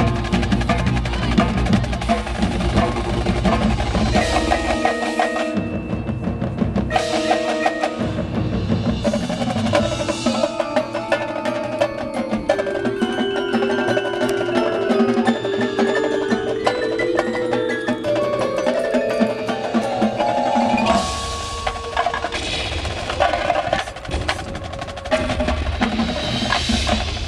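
High school marching band playing its competition field show, with percussion prominent. About five seconds in, the deep bass drops out for a lighter passage of stepped pitched notes. The full band comes back in with the bass near the end.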